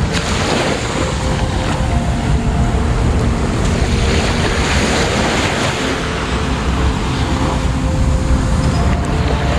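Wind buffeting the microphone in a steady low rumble, over the wash of surf on a beach.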